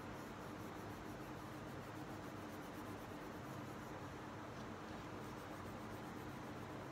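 Crayon rubbing on paper as a drawing is coloured in, faint and steady, over a steady low hum.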